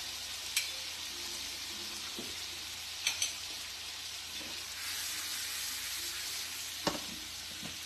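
Chicken pieces sizzling steadily as they fry in a pan, nearly golden and almost cooked, with a few sharp clicks along the way.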